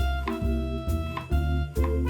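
Background music: an upbeat jazzy tune with horn-like melody notes over a steady bass beat.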